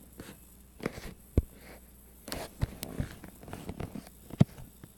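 Handling noise on a phone's microphone: scattered clicks, knocks and rubbing as the phone is moved about. The sharpest knock comes near the end.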